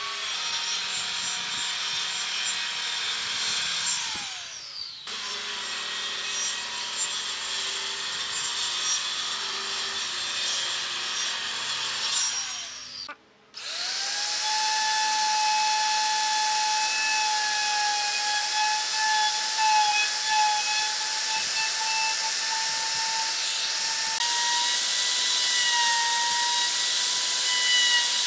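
A DCA circular saw running along a guide rail as it rips the edge of a live-edge wood slab; its pitch falls briefly about four seconds in and again just before thirteen seconds, when it winds down and stops. A DCA plunge router then starts with a rising whine and runs with a steady high tone, boring a mortise into the end of a wooden block.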